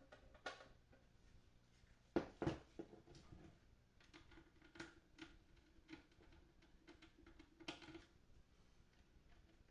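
Scattered small clicks and knocks of hands handling parts while reassembling a guitar amplifier, with two louder knocks close together about two seconds in.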